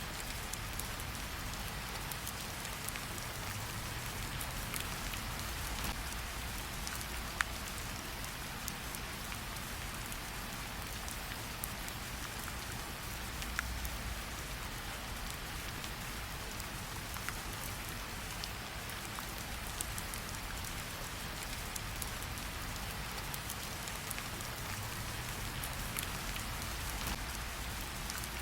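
Steady rain falling, an even hiss with a low rumble beneath, and scattered sharp pops of a campfire crackling. The clearest pops come about seven and fourteen seconds in.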